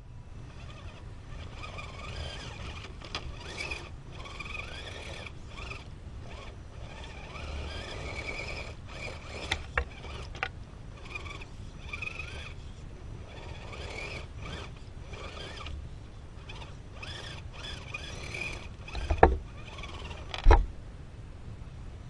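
An Axial SCX10 Deadbolt RC rock crawler's electric motor and gear drivetrain whines as it crawls slowly over granite, its pitch rising and falling with the throttle. Tyres scrape and grind on the rock, with occasional sharp knocks, the loudest two near the end.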